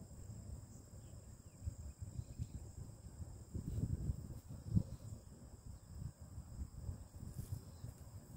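A steady high insect drone, held on several pitches, over irregular low noise that is loudest about four to five seconds in.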